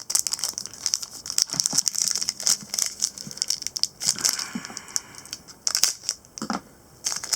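Plastic wrap and packaging of a basketball trading-card hobby box crinkling and rustling as the box is handled and opened by hand. A dense, irregular run of crackles and clicks, with a couple of brief pauses and a quieter moment near the end.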